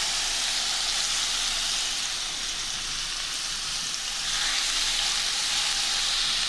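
Seasoned chicken breast pieces sizzling in a hot pan of avocado oil, just after going in: a steady frying hiss that eases slightly in the middle and swells again a little past four seconds in.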